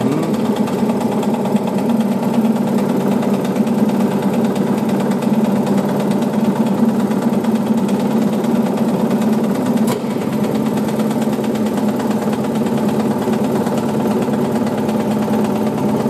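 Steady mechanical-electrical hum with a buzzy edge from the running high-voltage and vacuum apparatus, unchanging throughout, with one sharp click about ten seconds in.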